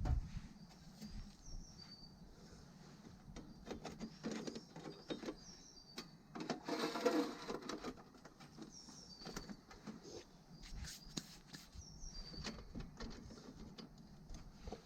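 Small birds chirping, with short high calls repeating every second or two, over scattered light clicks and knocks. Just past the middle, a louder sound with a harsh, pitched edge lasts about a second.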